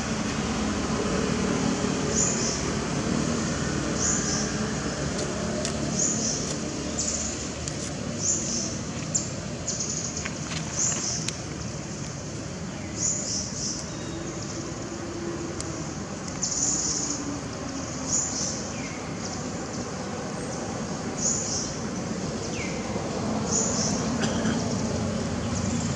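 Outdoor ambience: a steady background hiss with short high chirps recurring every second or two, and a faint voice now and then.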